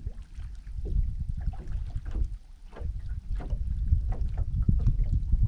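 Wind gusting on the microphone, easing briefly midway, with small waves lapping irregularly against the boat's hull.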